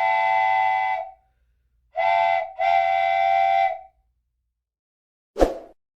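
Train whistle sounding a chord of several tones in three blasts: long, short, long. A single sharp metallic strike follows near the end.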